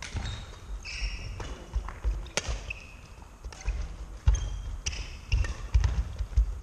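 Badminton rally on a wooden sports-hall floor: heavy thuds of footwork and landings, short squeaks of court shoes, and sharp cracks of rackets striking the shuttlecock, ringing in the large hall.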